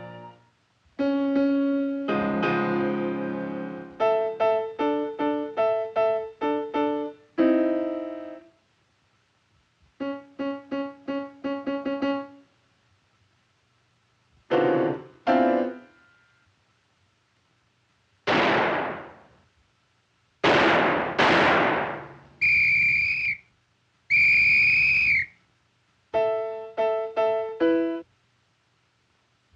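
Piano notes played in short separate runs with silent gaps between them. Roughly two-thirds of the way through, three swooshes fall in pitch, followed by two held high tones, and then the piano notes come back.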